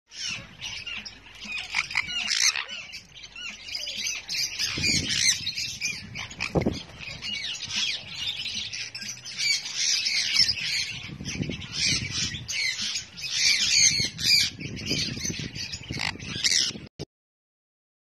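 Sun conures squawking: a continuous run of harsh, shrill, overlapping screeches that cuts off abruptly near the end.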